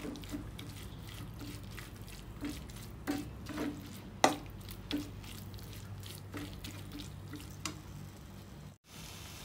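A metal spoon scraping and clicking against a nonstick frying pan as a thick onion-tomato masala is stirred, in irregular strokes, with one sharper click about four seconds in. A steady low hum runs underneath.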